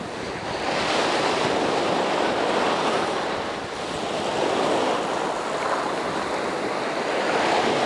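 Surf breaking and washing up a sand beach, a steady rush that swells and eases with each wave.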